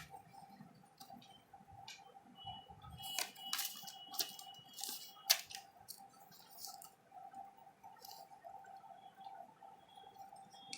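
Paper rustling and crinkling as an instruction leaflet is handled, busiest about three to five seconds in, with a few sharp clicks, over a faint steady hum.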